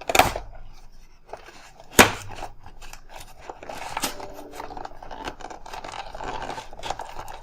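Packaging being handled as a keyboard wrist rest is worked out of its box: scraping and rustling, with two sharp knocks, one right at the start and one about two seconds in.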